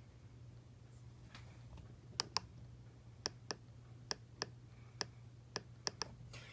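About ten faint, sharp clicks at irregular intervals, several in quick pairs, starting about two seconds in, over a low steady hum.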